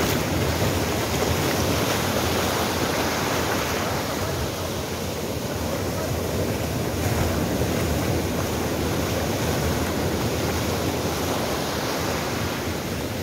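Sea surf breaking and washing up a sandy shore in a steady rush, easing slightly for a moment partway through.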